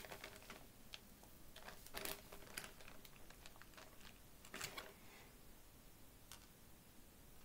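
Faint crinkling of a plastic zip-top bag and rattling of small plastic fuse beads as a hand rummages in a bag of Perler beads, in a few short bursts. A single faint click comes later.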